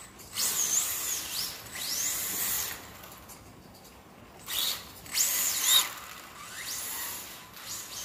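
Atomic BZ3 mini RC car's 12000kv brushless motor whining in bursts as the throttle is blipped, the pitch sweeping up and down with each burst, over a hiss from the tyres sliding on the tile floor. There are about five bursts, the loudest just past the middle.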